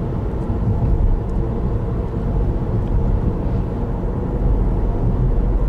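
Steady low rumble of a car's engine and tyres on the road, heard from inside the moving car's cabin, growing a little louder past the middle.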